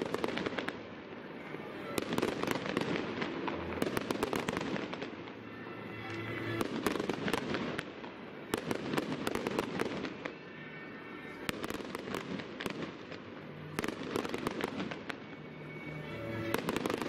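Aerial fireworks bursting overhead: rapid bangs and crackles that come in waves every couple of seconds.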